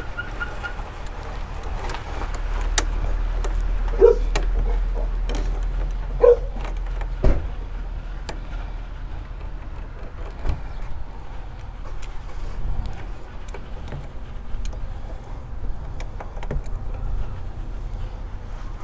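Pliers clinking and clicking against a car battery's negative terminal clamp as it is tightened: a few sharp metal knocks, the loudest about four and six seconds in, over a steady low rumble.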